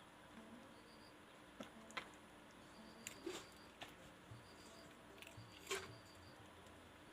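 A cat chewing food: a handful of faint, sparse crunching clicks spread over several seconds.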